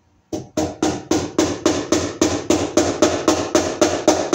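Rapid, evenly spaced hammer blows on wood overhead, about four a second for some sixteen strikes, each ringing briefly into the next.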